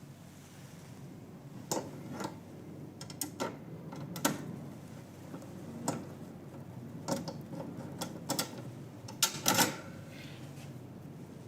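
Irregular clicks and knocks of a holding arm being fitted and fastened to the back of an EMS muscle stimulator machine, with a cluster of louder knocks about nine and a half seconds in.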